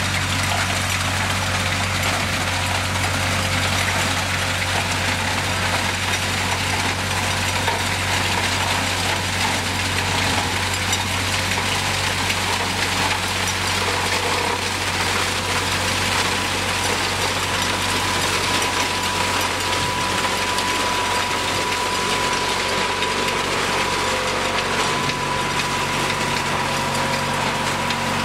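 Sugar cane harvester's engine running steadily under load as the machine cuts through standing cane, with a dense rattle and crackle of stalks being cut and fed through. A steady high whine runs along with it, growing stronger about two-thirds of the way in.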